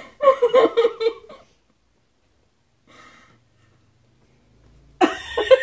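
A woman's breathy, gasping laughter muffled behind her hands, so close to sobbing that it is hard to tell laughing from crying. It comes in a burst over the first second or so, a faint one near the middle, and louder again near the end.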